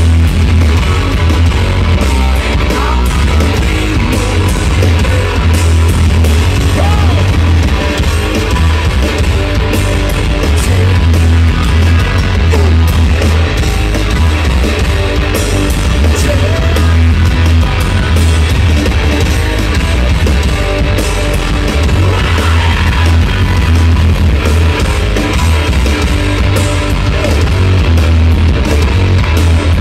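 Live rock band playing at full volume: distorted electric guitars, bass and drums through a concert PA, heard from the crowd with a heavy, boomy low end.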